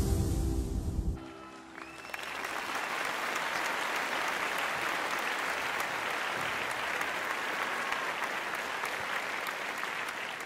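The dance performance's music ends about a second in, and then an audience applauds steadily.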